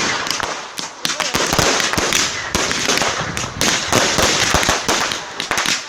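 Fireworks going off: a dense, irregular run of sharp bangs over continuous crackling, with no pause.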